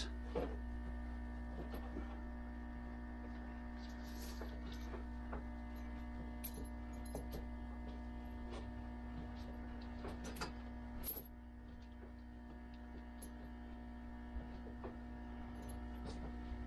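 Steady low electrical hum, with scattered faint clicks and rustling from hands working the metal hook and links of a rubber Terra Grip traction device onto a tractor tire; a slightly louder clack comes about eleven seconds in.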